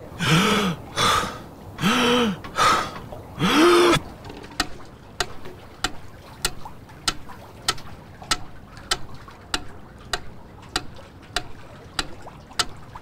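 A man lets out four breathy, voiced sighs, each rising and falling in pitch. Then a wooden pyramid metronome ticks steadily, at about a hundred ticks a minute.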